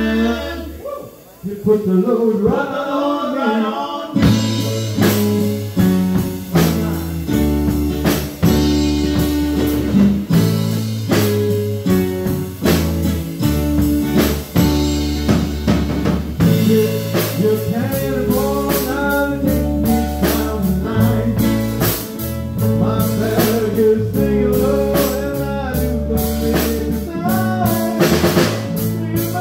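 Live rock band playing with singing, electric guitar and drum kit. A held chord breaks off about a second in, a voice carries a short line, and the drums and full band come back in about four seconds in with a steady beat.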